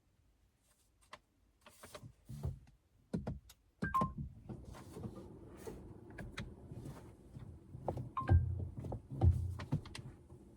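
Clicks and knocks of controls being worked inside a Honda ZR-V's cabin, with dull thuds and two short electronic beeps, one about four seconds in and one about eight seconds in.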